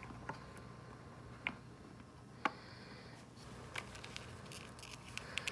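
Faint clicks and taps from handling multimeter test probes against a AA battery. There are four single clicks about a second apart, then a quicker cluster near the end.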